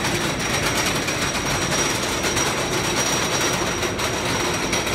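Wooden roller coaster train being hauled up its lift hill, the lift chain clattering in a fast, steady rattle.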